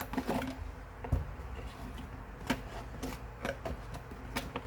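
Hands handling a watch's packaging while unboxing: scattered clicks, taps and light rustles, with a soft thump about a second in.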